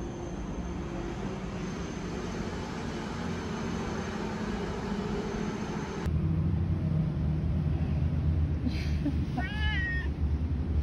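A domestic cat meows once near the end, a short call that rises and falls, over a steady low rumble. Before that, an even background hiss cuts off suddenly about halfway through.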